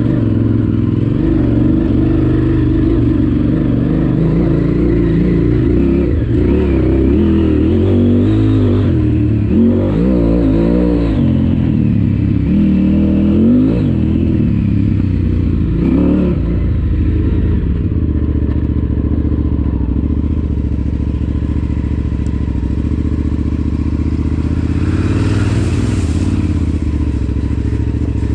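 KTM 950 Super Enduro's V-twin engine running under way on a dirt trail. Its note rises and falls with the throttle through the first half, then holds steadier.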